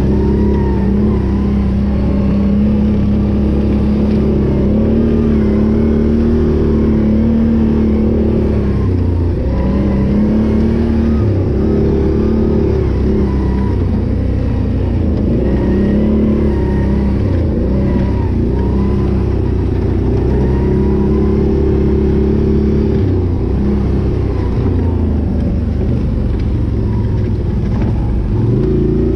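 Can-Am Renegade 800 ATV's V-twin engine running under load on a trail, its revs rising and falling again and again as the throttle is worked.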